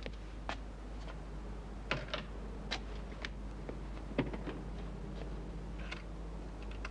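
A series of light, irregular clicks and taps, some about half a second apart, over a low steady hum.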